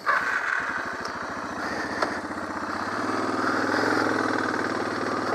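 Suzuki DR650SE single-cylinder four-stroke motorcycle engine catching at the start and settling into a steady idle, its even firing pulses growing a little louder after a few seconds.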